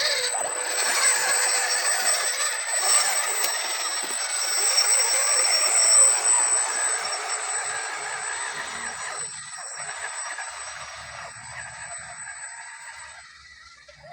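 Electric motor and gearbox of an RC scale crawler whining as it drives, growing louder through the first half and then fading away.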